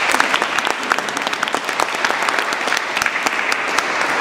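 A group of children applauding together, a dense, steady run of many hands clapping.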